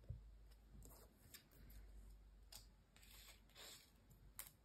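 Near silence, with a few faint taps and rustles of paper die-cut pieces being picked up and handled on a cutting mat.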